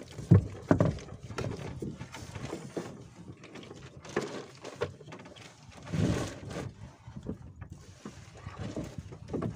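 Knocks and rustling from people moving about and handling the net in a small fishing boat, with two sharp knocks in the first second and cloth brushing close to the microphone.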